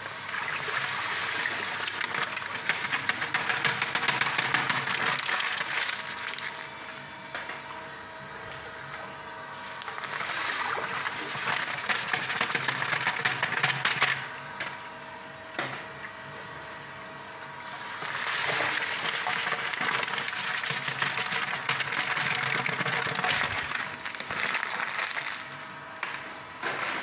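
Granulated sugar and water being churned in a plastic bucket by a rotating mixing rod to make thick sugar syrup, in three long noisy bouts with quieter pauses between them.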